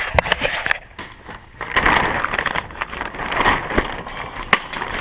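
Airsoft gunfire and clatter: sharp, irregular cracks, with two longer stretches of dense rattling noise about two and three and a half seconds in.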